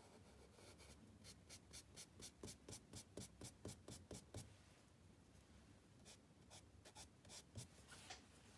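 Charcoal stick scratching on sketchbook paper in quick back-and-forth shading strokes, about five or six a second for some three seconds, then a few slower strokes near the end. Faint.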